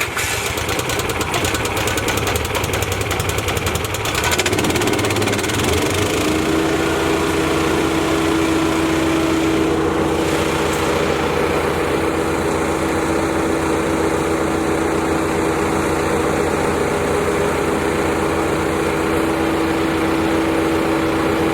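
Briggs & Stratton XR2100 420cc petrol engine of a wood chipper running just after a key start on choke. About five seconds in it picks up and a steady hum joins it, holding evenly to the end.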